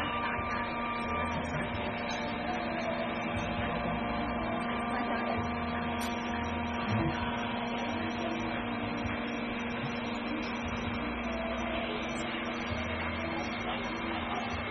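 WDS-700 hot air BGA rework station running, its fans and hot air blower giving a steady whir over a low electrical hum.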